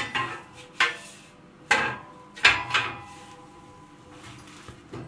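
Four sharp metal clanks, the last two close together, each followed by a brief ring, as a column radiator is shifted and set down on its wall brackets while it is being levelled.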